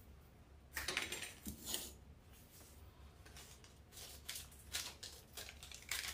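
Faint crinkly rustling and scattered light clicks of poly burlap deco mesh being handled and worked into place, in short bursts about a second in and again later.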